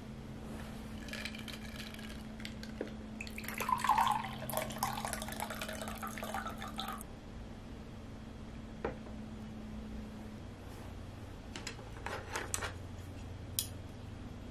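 A drink poured from a bottle into a glass tumbler, splashing and gurgling for about six seconds, loudest about four seconds in. A few light glass clinks follow near the end.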